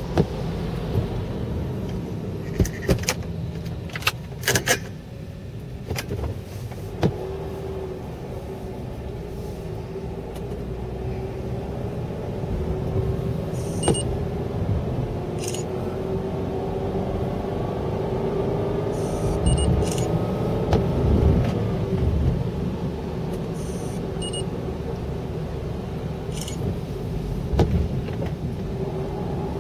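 Car driving on a wet road, heard from inside the cabin: a steady rumble of engine and tyre noise, with an engine tone that rises slowly through the middle. Several sharp clicks and knocks come in the first seven seconds.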